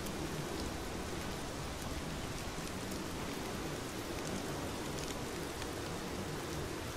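Steady rain falling, a continuous even hiss with a few faint ticks of single drops.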